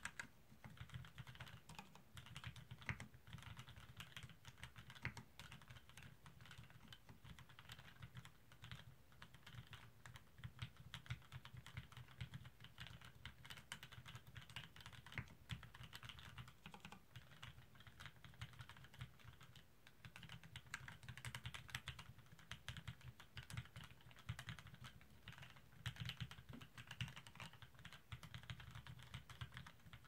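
Continuous typing on a Duck Jetfire mechanical keyboard fitted with lubed Cherry MX Vintage Black linear switches in a plastic plate: a rapid, steady run of key strokes.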